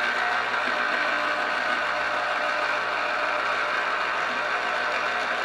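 Electric citrus juicer running steadily as a lemon half is pressed down onto its spinning reamer.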